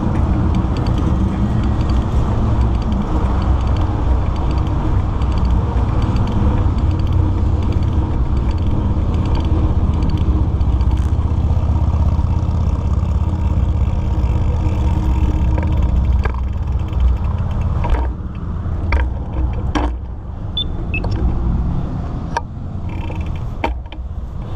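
Wind rumbling on the microphone and road noise from a mountain bike being ridden. In the last several seconds the rumble eases and the bike gives sharp clicks and rattles.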